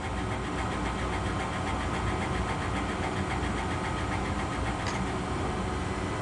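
Trotec SP100 CO2 laser cutter running as it cuts out a circular design: a steady mechanical hum, with a short tick about five seconds in.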